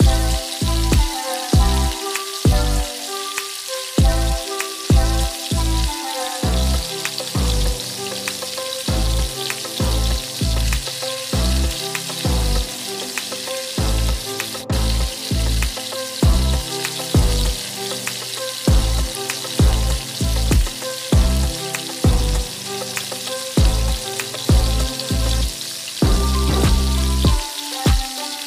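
Breaded chicken wings deep-frying in hot oil in a wok, a steady sizzle, under background music with a melody and a steady bass beat. One sharp click near the middle.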